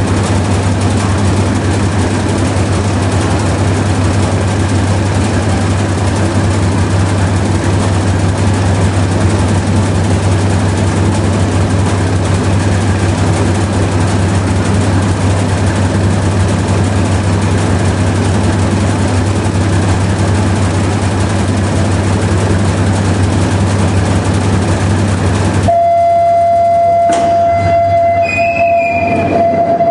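Twin diesel engines of a Tamar-class lifeboat running steadily, a loud deep drone. About four seconds before the end the drone cuts off suddenly, leaving a steady high-pitched tone and a single sharp click.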